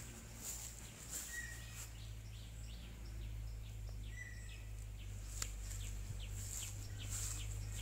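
Small birds chirping and calling in quick series of short notes, with a few brief whistled notes about a second and a half and four seconds in, over a steady low hum.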